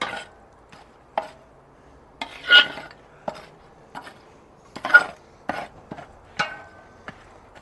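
A metal tool scraping and clanking around the inside of a Weber charcoal kettle's steel bowl, working ash and leftover coal back and forth so the ash sifts down through the bottom vents. The scrapes and knocks come irregularly, a few of them with a brief ringing from the bowl.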